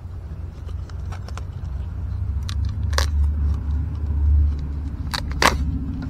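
Light handling noises as a wooden shelf board and its packaging are handled: a few sharp clicks and taps, with a plastic bag crinkling about five seconds in. Under them runs a steady low rumble that swells about four seconds in.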